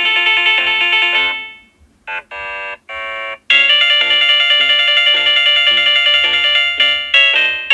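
Samsung Galaxy Note 8 ringtones playing: a melodic ringtone fades out about a second and a half in, three short tones follow, then another melodic ringtone begins about halfway through.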